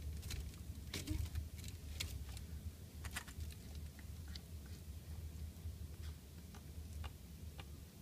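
Red-tailed hawk taking and eating raw meat from feeding forceps: a quick run of small clicks and snaps from beak and forceps, thick for the first three seconds or so and then only scattered ticks. A low steady hum lies underneath.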